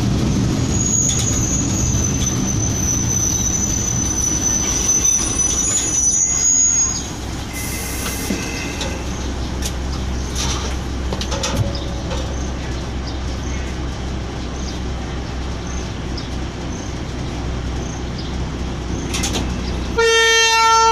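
Diesel locomotive's engine running steadily, heard from inside the cab, with a thin high squeal of wheels or brakes for the first several seconds, then a short hiss of air. Near the end the locomotive's horn sounds.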